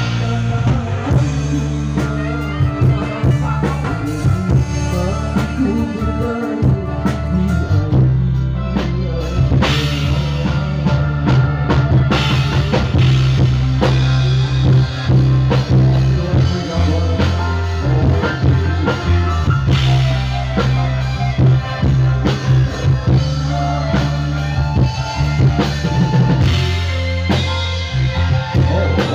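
Live orkes band played through a large PA sound system: drum kit, bass guitar and keyboards under a man's singing, with very heavy bass.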